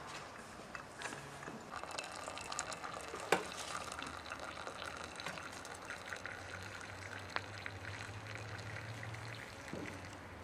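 Water running from a samovar's tap in a thin stream into a cut-crystal glass, filling it, with small clicks throughout and one sharp click about three seconds in.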